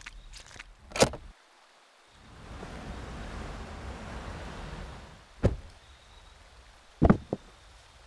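Foley of a body being hauled out of a closet and rolled up in a rug. There are a few light clicks and a heavy thump about a second in, then a sliding, rustling noise for about three seconds. A thud follows, then two quick knocks near the end.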